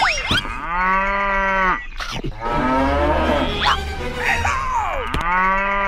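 Cow mooing: two long moos, one about half a second in and one near the end, with a rougher, lower call between them.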